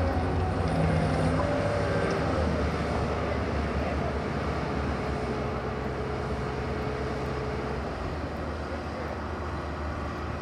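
Diesel engines of heavy earthmoving machinery running steadily: a low drone with a constant hum that fades slightly toward the end.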